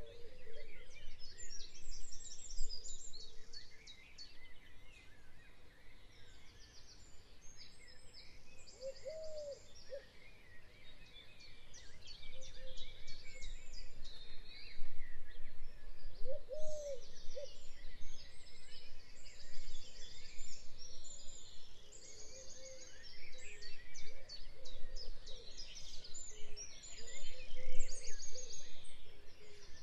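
Several birds singing and chirping, with fast twittering trills, over a steady low background rumble; a lower, curved call stands out twice.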